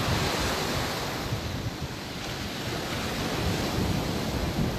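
Small sea waves washing onto a sandy beach, a continuous surf wash, with wind buffeting the microphone in a low rumble.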